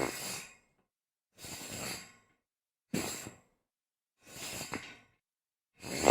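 A series of short slides across a metal grate: five separate scraping swishes, each under a second, about one every second and a half, with faint metallic ringing in them and silence between.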